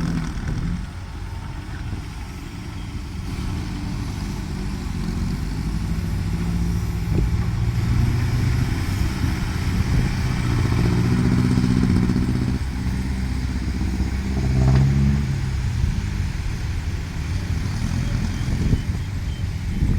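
Heavy diesel construction machinery running under load, its engine note rising and falling, strongest around the middle of the stretch.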